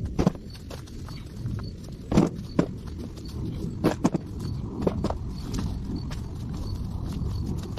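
A series of irregular knocks and thuds, a few seconds apart, some in quick pairs, over a steady low background rumble.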